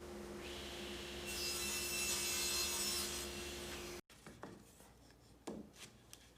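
Table saw running with its blade tilted, cutting a combined taper and 26-degree bevel through walnut plywood on a taper jig. A steady motor hum with a hiss of the cut lasts about two seconds, then the sound stops abruptly about four seconds in, leaving a few faint knocks.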